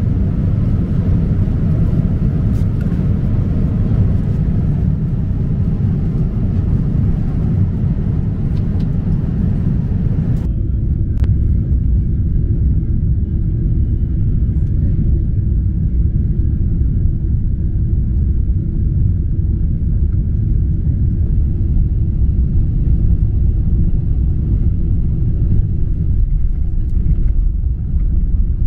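Steady cabin rumble of a Boeing 777-300ER jet airliner heard from inside the cabin, with hiss above it. About ten seconds in the sound changes abruptly: the hiss drops away and a deeper, duller rumble carries on.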